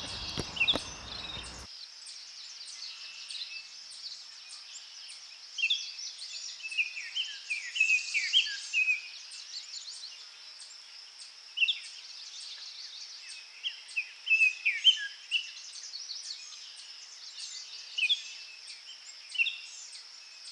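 Birds chirping in many short, quick calls over a steady high-pitched insect drone. A low rumble with a few clicks is heard in the first second or so and cuts off suddenly.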